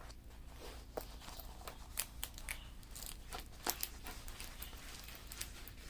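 Crinkling and rustling of plastic packaging being handled, a string of irregular small crackles and taps.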